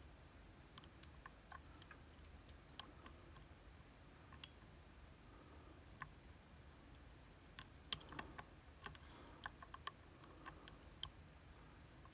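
Scattered, irregular small metallic clicks of a lock pick working the sliders of a Vachette V-DIS+ high-security cylinder, coming more often and a little louder past the middle.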